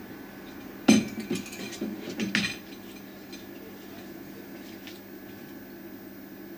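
A short run of clinks and knocks from hard objects, starting about a second in and lasting under two seconds, over a steady faint hum with a thin high whine.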